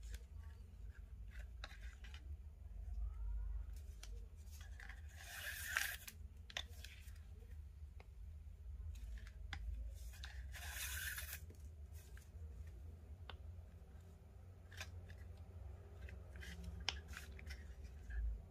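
Nylon paracord being pulled through and tightened into cobra knots by hand: two longer swishing pulls of cord, about five and ten seconds in, among scattered small rubbing clicks and taps.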